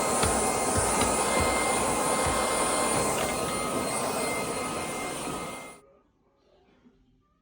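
Vacuum cleaner running with a steady motor whine, fading and stopping about six seconds in.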